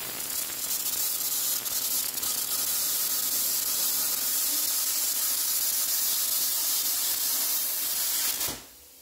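Strata AdvanceCut125 120A inverter plasma cutter's handheld torch cutting through 30 mm steel plate: a steady, loud hiss of the arc and compressed air that stops abruptly near the end.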